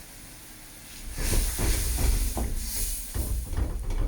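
Spice paste frying in a hot wok, sizzling and hissing, with a spatula stirring and scraping through it. The stirring becomes loud about a second in and goes on in quick, uneven strokes.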